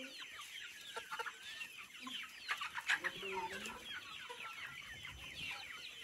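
A flock of local-breed chickens calling together: many short overlapping clucks, with quick higher-pitched calls over lower ones.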